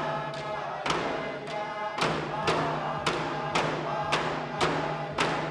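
Eskimo dance music: a large frame drum struck in regular beats, spaced out at first and then about two a second from about two seconds in, with a group of voices singing along.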